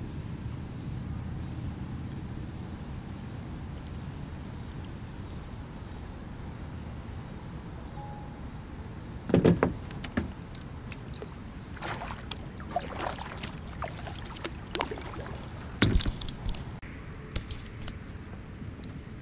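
Paddling a small plastic Pelican kayak: a steady low rush of water against the hull, then from about halfway a string of sharp paddle splashes and knocks, the loudest about halfway in and again near the end.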